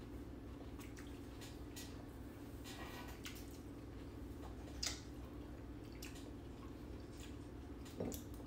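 Faint small wet clicks and smacks of grapes being peeled and eaten at the table, over a steady low hum.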